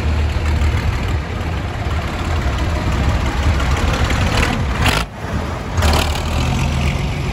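Diesel tractor engine running steadily as the tractor drives slowly past close by, with a brief drop in the sound about five seconds in.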